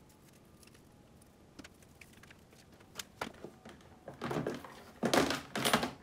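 A few faint taps, then a clear plastic compartment storage box being pulled out and handled, sliding and clattering in two loud bursts near the end.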